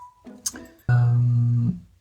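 Short musical sting on guitar: a single plucked note held for just under a second, then fading away.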